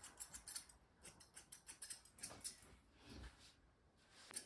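Faint, quick snips of small grooming scissors cutting a puppy's fur, several a second, with a short pause near the end.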